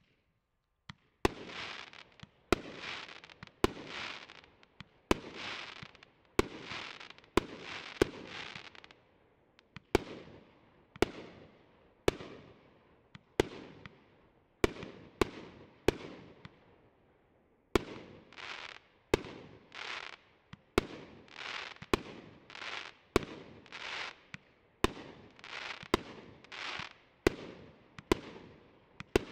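Triplex TXB672 'Summer/Lato' firework cake firing shot after shot, about one a second: each sharp report is followed by about a second of noisy burst. The bursts are weaker for a stretch in the middle.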